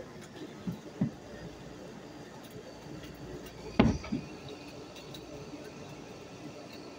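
A few dull thumps over low background noise: two light ones in the first second and a louder double thump about four seconds in.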